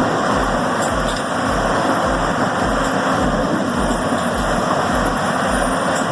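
A heavy machine's engine running steadily under load, with a deep low thud about twice a second.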